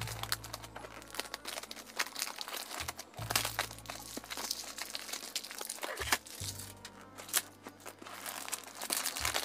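Clear plastic shrink-wrap being peeled and torn off a perfume box, crinkling and crackling irregularly. Quiet background music with low held notes plays underneath.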